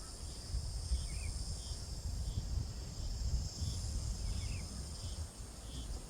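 Steady high-pitched drone of a summer insect chorus, with a low rumble underneath and a few faint short chirps, about a second in and again past four seconds.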